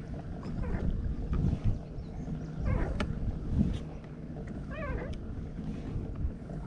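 Pedal-drive fishing kayak moving across choppy lake water: a low rumble of water against the hull and wind on the microphone, with a few short wavering squeaks.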